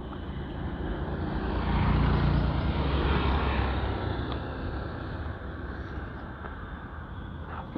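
Rumble of a passing vehicle, swelling about two seconds in and then slowly fading.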